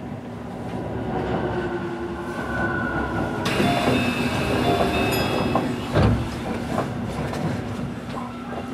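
Keio 9000 series commuter train running past close alongside on the next track, heard from the cab of a standing train: wheels clattering over the rails, with a hiss and whining tones from about three and a half seconds in and a sharp thump near six seconds.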